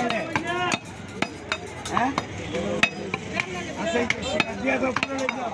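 Irregular sharp knocks and clinks of a butcher's cleaver on a wooden chopping block, about a dozen over a few seconds, with people talking in the background.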